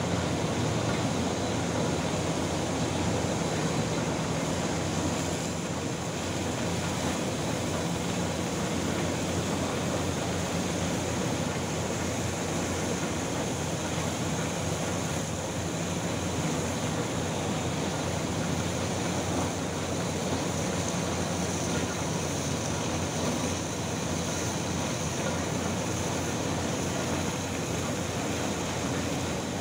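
Steady rushing of bulk coal pouring from a floating crane's loading chute into a ship's cargo hold, with a steady machinery hum underneath.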